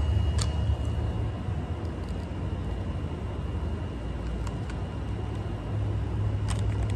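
A steady low rumble, with a couple of faint clicks near the start and near the end.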